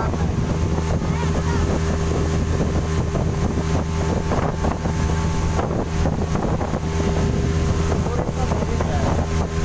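Yamaha 40 hp outboard motor running steadily at cruising speed, pushing a fiberglass speedboat along, with wind buffeting the microphone.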